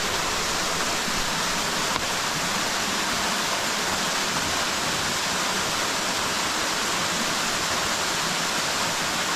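Waterfall rushing steadily, an even hiss of falling water.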